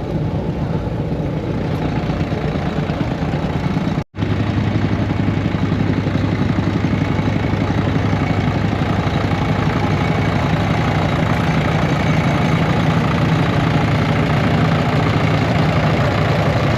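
Diesel engine of an old Caterpillar D4 crawler tractor idling steadily. The sound cuts out for an instant about four seconds in, then the engine carries on evenly.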